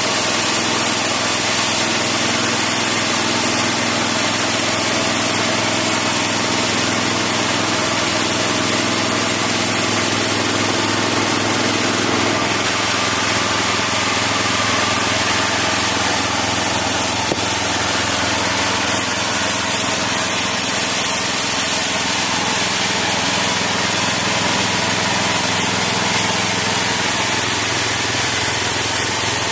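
Homemade engine-driven bandsaw mill, its 16 HP engine running steadily while the blade cuts through wood. The engine's tone shifts about twelve seconds in.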